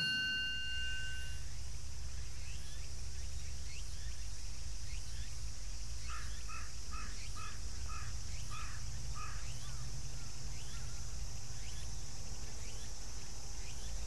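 Outdoor summer ambience: a steady high-pitched insect chorus over a low rumble, with a quick series of evenly repeated chirps, about two and a half a second, from about six to ten seconds in. A bell's ding is dying away at the very start.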